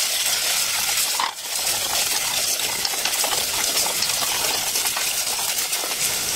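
Diced onions and ginger-turmeric paste sizzling in coconut oil in a stainless steel pot while being stirred with a wooden spatula: a steady crackling fry with a brief dip about a second in.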